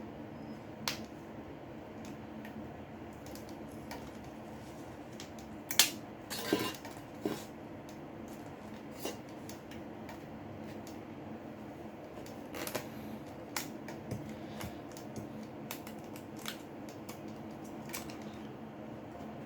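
Small hand tools clicking and tapping against a smartphone while its glued screen is pried off. A sharp click comes just before six seconds, followed by a short scrape, with lighter scattered clicks throughout over a steady low hum.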